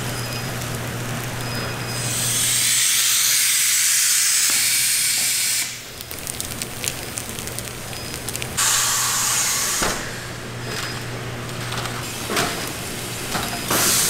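Nurungji-making machinery humming steadily, with a long burst of hissing about two seconds in and a shorter one near the middle, plus brief hisses near the end.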